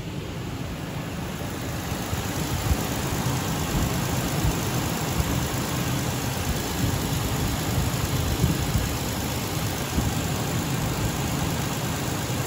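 Ford Ranger's 4.0-litre V6 idling steadily under an open hood while it warms up to test the heater. It grows louder over the first couple of seconds, then holds steady.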